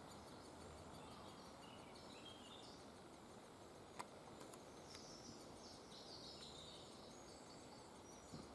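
Great spotted woodpecker nestlings chirping faintly from inside the nest hole, in clusters of short high calls over a steady background hiss. A single sharp click about four seconds in.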